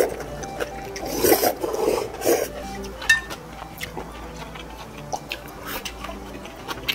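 Someone eating cold soybean noodle soup: a few bursts of slurping and chewing in the first two and a half seconds, then scattered light clicks of utensils against a bowl.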